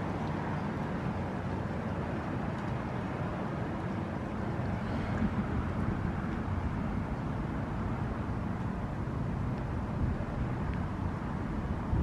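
Wind blowing in at an open doorway, a steady rushing rumble buffeting the microphone.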